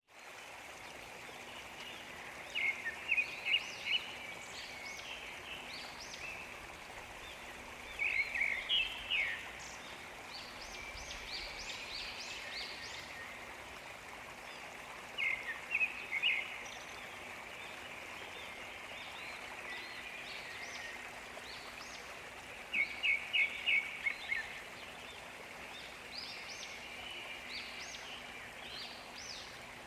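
Steady rush of a waterfall with a bird singing short bursts of rapid chirping notes, repeated about every six to seven seconds.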